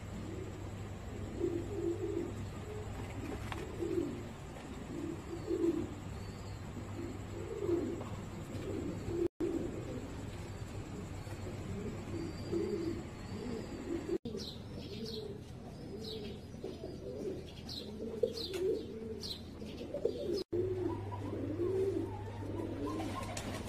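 Domestic fancy pigeons cooing over and over, several birds overlapping. Through the middle stretch, short high chirps come in over the cooing, and the sound drops out briefly three times.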